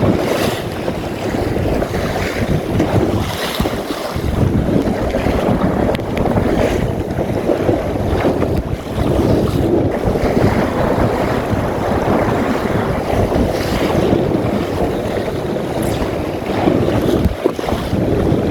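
Strong wind buffeting the microphone over water rushing and splashing against the hull of a small open sailing dinghy under way in waves.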